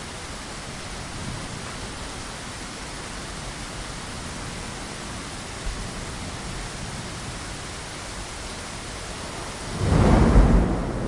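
Steady rain pattering against a window, with a loud rumble of thunder swelling up near the end and trailing off.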